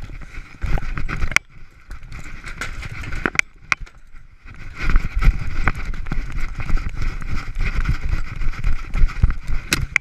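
Running footsteps and the knocking and rubbing of a body-worn camera on its wearer. The strides get heavier and faster about halfway through, as the runner sprints across pavement and grass.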